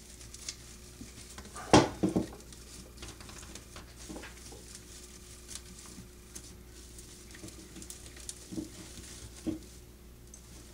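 Dry twig broom bristles rustling and crackling as they are spread by hand around a wooden broomstick. A quick cluster of sharp knocks about two seconds in, then a few scattered small clicks.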